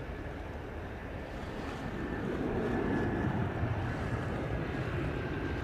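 Steady low rumbling noise of wind and surf, swelling a little midway, with the faint steady whine of a twin-jet airliner's engines on final approach.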